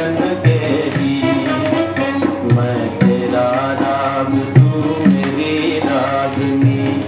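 Music with a wavering melodic lead over low drum strokes that fall every second or so, played from a vinyl record on a turntable through a Pioneer A-447 stereo integrated amplifier.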